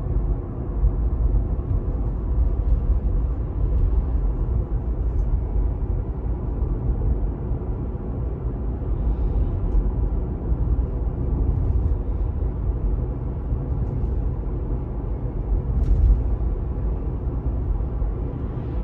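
Steady low road and tyre rumble inside a 2018 Tesla Model 3 cruising at about 37 mph. The drive unit whine is barely there: pretty much gone after the drive unit's ground nuts were tightened.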